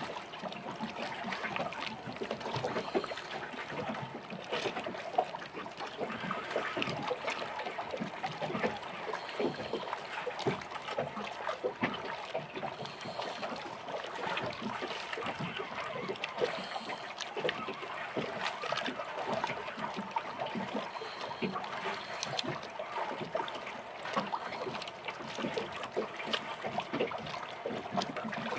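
Water lapping and splashing against the hull of a small boat, an irregular patter of small slaps and trickles.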